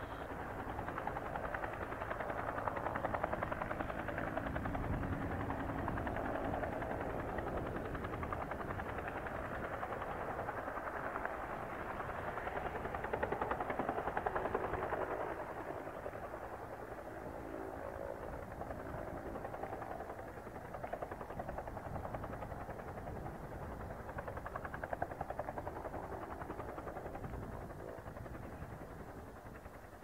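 UH-1J helicopter hovering: its single turboshaft engine and two-bladed main rotor give a steady, rapid chopping beat. The sound grows somewhat quieter in the second half as the helicopter settles low toward touchdown.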